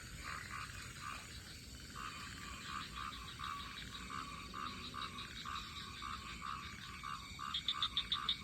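Frogs calling in a chorus: a croak repeating steadily about two to three times a second, with a higher, quicker run of calls that gets louder near the end.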